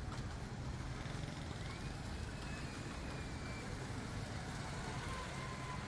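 Motorcycles passing close by on a city road: a steady low rumble of engines and traffic, with a faint thin whine gliding up and down partway through.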